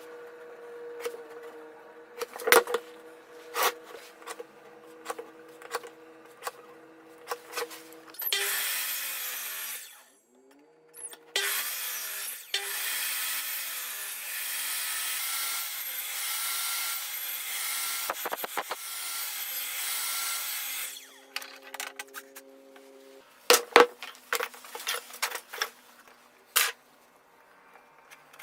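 Homemade power tool driven by a washing-machine motor, cutting wood. The motor hums steadily with light taps, then two spells of loud sawing, the first brief and the second about ten seconds long with the motor's tone wavering under load, and then several sharp knocks near the end.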